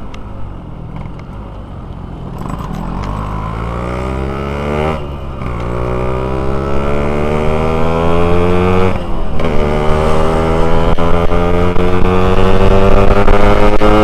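Yamaha RX-King's two-stroke single-cylinder engine accelerating hard through the gears, the pitch climbing, dropping at two gear changes about 5 and 9 seconds in, then climbing again, growing louder.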